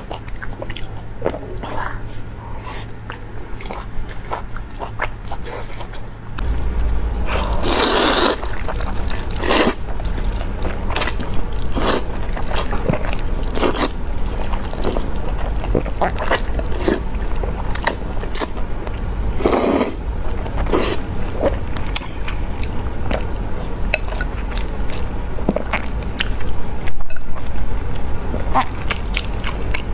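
Close-miked eating sounds: wet chewing, lip smacks and clicks of the mouth, with two longer slurps of wide noodles about eight and twenty seconds in.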